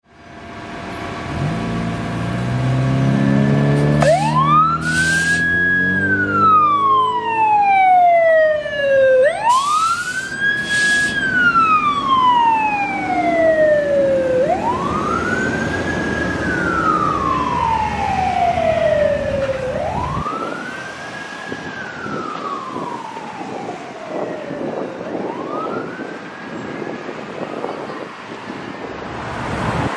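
Fire engine's mechanical siren winding up and coasting down five times in slow cycles, each one rising quickly and falling slowly, while the truck's engine pulls hard at the start and two short pairs of horn blasts sound early on. The siren fades in the second half as the engine drives away.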